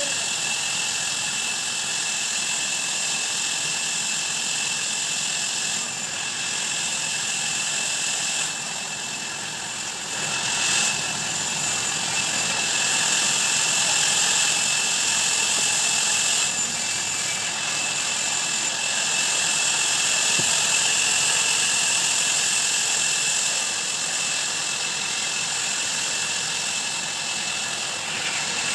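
Sawmill band saw running and cutting wood, a steady high hiss-like machine noise that grows louder for a few seconds about 11 seconds in and again about 20 seconds in.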